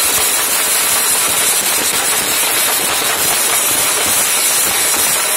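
A group of large double-headed drums beaten with sticks, played hard and continuously, the strokes blurring into a dense wash with a steady high hiss over it.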